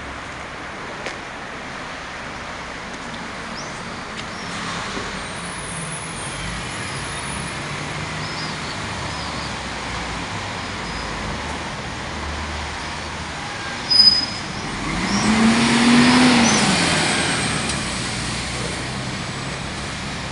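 Street traffic noise. About two-thirds of the way through, a road vehicle passes, its engine note rising and then falling as it goes by, just after a short sharp sound.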